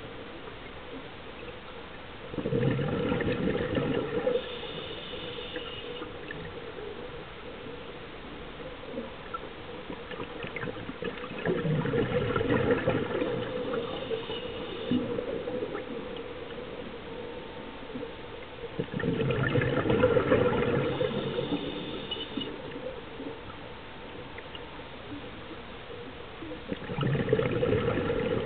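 Scuba regulator breathing underwater: four bubbling bursts of exhaled air roughly every eight seconds, each followed by a short hiss of an inhale through the demand valve, over a steady low hum.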